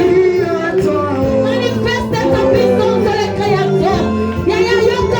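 Church worship song: singing voices over instrumental accompaniment with steady bass notes.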